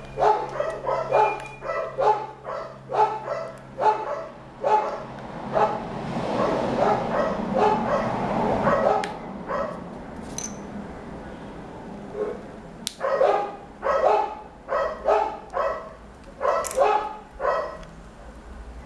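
A dog barking repeatedly, about two barks a second, falling silent for a few seconds past the middle and then barking again. A rushing noise swells and fades under the barks near the middle.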